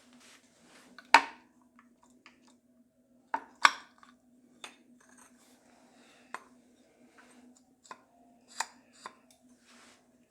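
Hand tools and metal engine parts clanking and clicking during the teardown of an engine's front cover and water pump: a string of separate sharp metal knocks, the loudest about a second in and a pair just after three seconds, over a faint steady hum.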